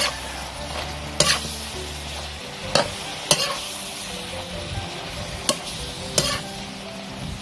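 Vegetables, pork and shrimp sizzling in a metal pan as a metal spatula stir-fries them, with six sharp clanks and scrapes of the spatula against the pan over the steady frying hiss.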